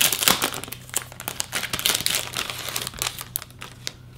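Crinkling wrapping on a set of greeting cards being handled and opened by hand, dense crackles that thin out over the last second or so.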